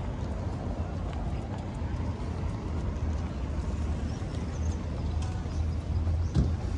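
Outdoor street ambience: a steady low rumble with scattered light taps and one sharper knock about six seconds in.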